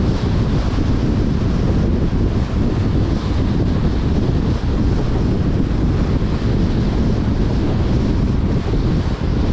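Wind buffeting the microphone of a camera mounted outside a moving car, a steady, heavy rumble, with a fainter rush of tyres on wet road beneath it.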